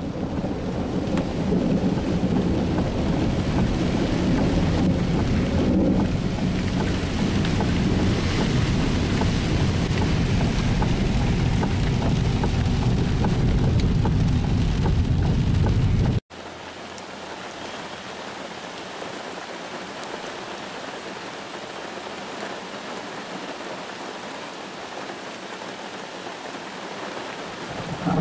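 Heavy rain drumming on a car's roof and windshield, heard from inside the car, with a deep steady rumble underneath. About sixteen seconds in the sound cuts off abruptly to a quieter, steady rain hiss without the rumble.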